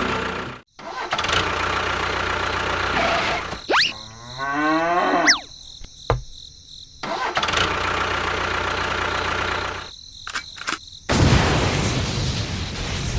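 Engine-like running and starting sounds in several short segments broken by abrupt cuts, with a pitched tone sliding down about four to five seconds in.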